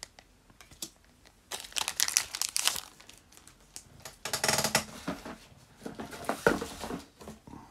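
Foil booster-pack wrapper crinkling and Pokémon trading cards being handled, in two bursts, with a sharp tap of a card near the end.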